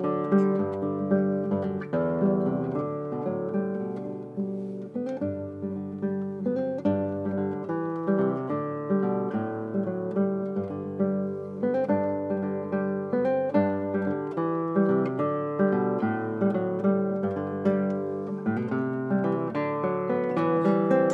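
Solo nylon-string classical guitar played fingerstyle: a continuous run of plucked notes over a bass line.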